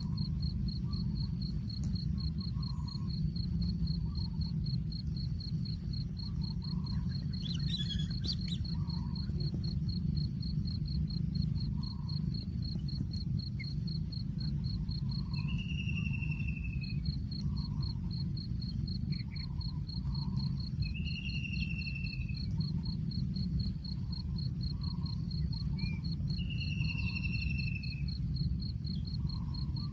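Insect chorus outdoors: a cricket-like insect trills in a steady, rapid, evenly pulsed high note, pausing briefly about halfway. In the second half a short, slightly falling high call repeats about every five seconds. Beneath it all runs a steady low rumble.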